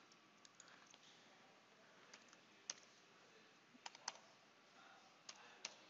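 Several faint, scattered clicks of computer keys being typed, spaced irregularly across a few seconds over quiet room tone.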